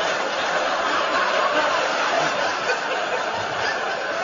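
Large studio audience laughing continuously.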